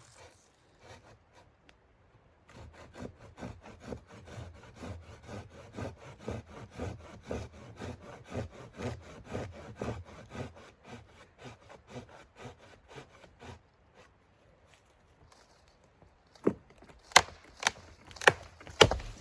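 Hand saw cutting through wood in steady back-and-forth strokes for about ten seconds, then stopping. A few seconds later come five or six sharp, loud wooden knocks.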